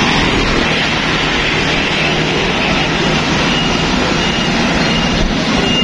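Road traffic going past: a steady rumble of engine and tyre noise from motorbikes and trucks on the road, with a faint repeated high tone in the second half.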